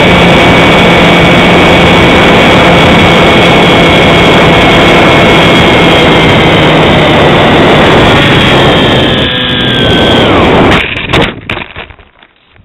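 Radio-controlled model plane's motor and propeller running steadily, heard from a camera on its wing with heavy wind rush. About nine seconds in the motor's pitch falls away as it throttles down, then a few sharp knocks and scrapes as the plane touches down on grass, and the sound drops to much quieter.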